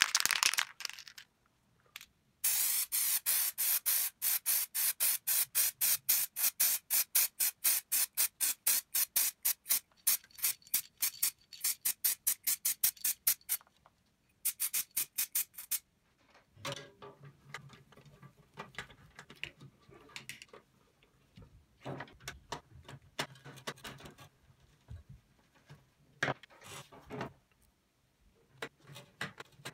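Aerosol spray-paint can in use, giving a long run of short, evenly spaced hisses, about three a second, which stop about halfway through. After a pause come scattered light clicks and taps of a screwdriver and small metal parts on a sheet-metal housing.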